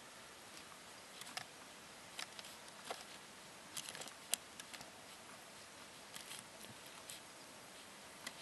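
Faint, irregular small clicks and taps from handling a miniature figure and paintbrush while painting fine detail, over a steady hiss. The sharpest click comes about four seconds in.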